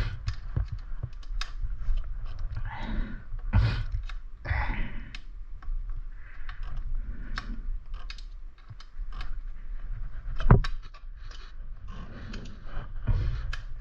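Clicks, taps and light knocks of hand tools and metal parts as a bicycle's rear derailleur is adjusted with an Allen key, with one sharper knock about ten and a half seconds in and a few breaths in between.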